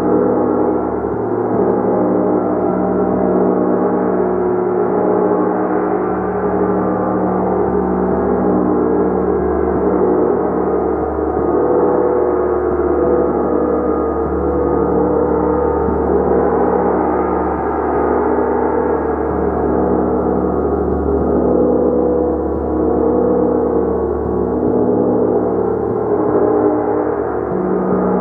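A large gong played continuously, its deep, shimmering overtones swelling and shifting in a sustained wash of sound without distinct separate strikes.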